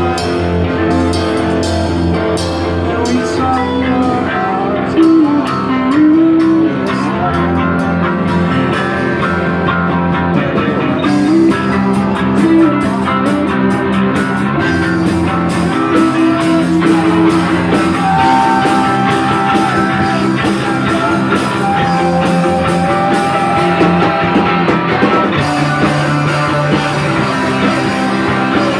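Live emo rock band playing loudly: electric guitars over a drum kit.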